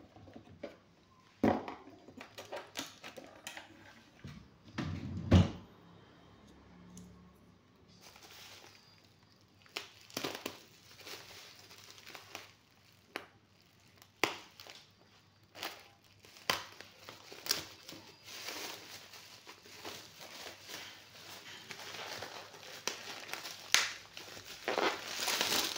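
Plastic mailing bag crinkling and rustling as a taped parcel is handled and cut open with scissors, with scattered clicks and knocks. A louder thump about five seconds in.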